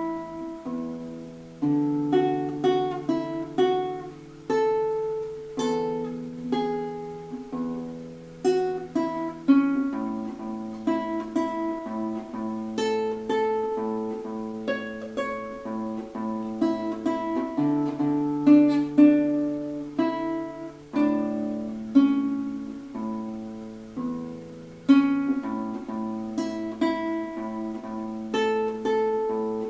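Classical nylon-string guitar played solo and fingerpicked: a flowing line of plucked notes over held bass notes that change every few seconds.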